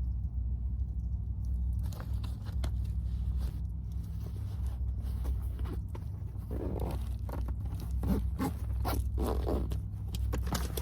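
Clothes and bags being handled and rummaged through: rustling, scraping and a zipper, in quick irregular bursts that start about two seconds in, over a steady low hum.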